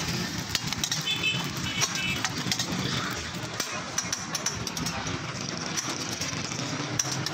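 Metal spatula clicking and scraping on a flat steel griddle as burger patties are handled, with many short sharp ticks over a steady low background rumble.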